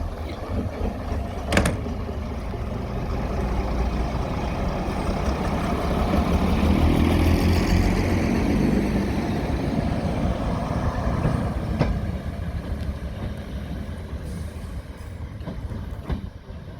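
Heritage diesel locomotive passing by, its engine and wheels getting louder to a peak about seven or eight seconds in, then fading away, with a couple of sharp clicks along the way.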